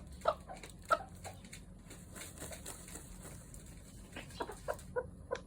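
Japanese bantam (chabo) rooster making short clucking calls: two sharp ones within the first second, softer ones after, then a quick run of about five notes near the end.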